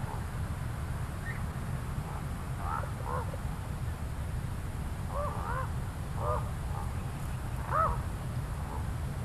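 Ravens calling in short hoarse croaks: a couple a few seconds in, a quick run of them in the middle, and the loudest near the end, over a steady low rumble.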